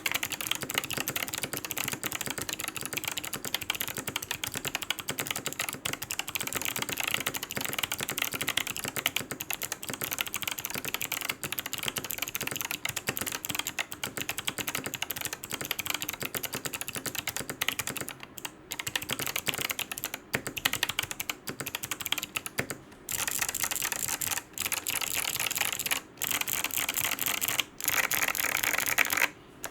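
Fast, continuous typing on an NCR80 V2 mechanical keyboard with clicky Kailh Box White switches, an FR4 plate and PBT keycaps: a dense stream of crisp key clicks. Brief pauses break the typing a few times in the second half.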